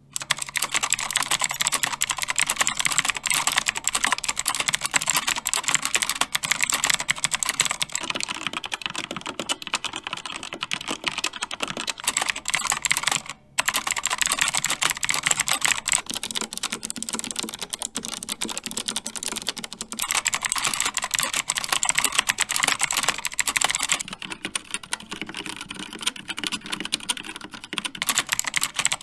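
Fast, continuous typing on a series of mechanical keyboards, the character of the clacking changing every several seconds as the board changes: first a Rapture X-Ray with clicky Outemu Blue switches, then the same board with linear Outemu Red switches, then an MSI Vigor GK50 with Kailh White switches, and near the end a Rapture Delta with Kailh Red switches.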